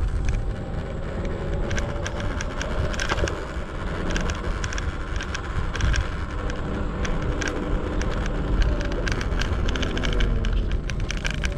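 Segway Ninebot ES4 electric scooter rolling over pavement on solid tyres: a steady low rumble with rapid, irregular rattling clicks as the hard tyres pass road vibration into the scooter.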